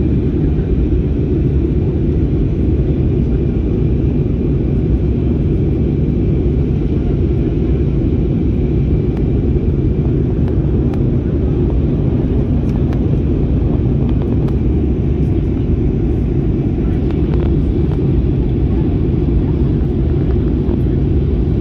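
Steady cabin rumble of an Airbus A320-family jet airliner descending to land: engine and airflow noise heard from a window seat, with a faint high whine that fades out about halfway through.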